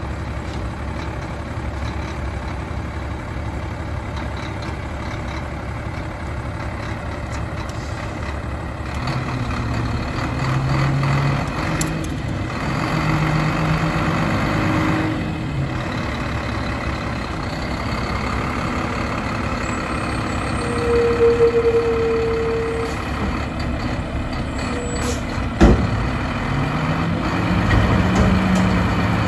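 Mack LR front-load garbage truck's engine running, revving up a couple of times as its Amrep loader's hydraulics work the front arms. A steady beep lasts a couple of seconds past the middle, and a few seconds later comes a sharp clank as the forks engage a commercial bin.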